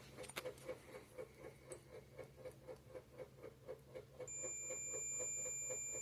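Multimeter continuity beep: a steady high tone that starts about four seconds in when the probes meet a replacement dryer thermostat, showing that the thermostat has continuity. Under it, a light ticking at about four a second.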